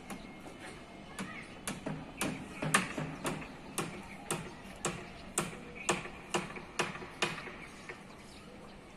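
Hammering: a hammer striking hard about two times a second for some six seconds, each blow with a short ring, then stopping.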